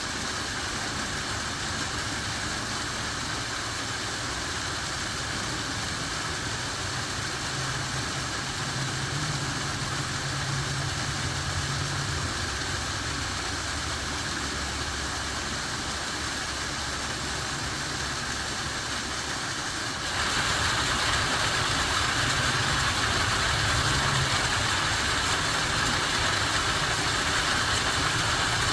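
Steady rushing roar of a waterfall with a low rumble underneath. It gets louder and brighter about twenty seconds in.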